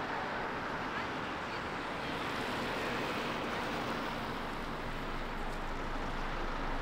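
Steady outdoor background noise, an even wash of sound with no distinct events.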